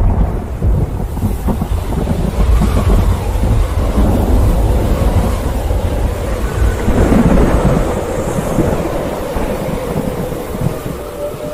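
Tornado wind roaring: a loud, continuous low rumble with heavy buffeting, easing a little near the end.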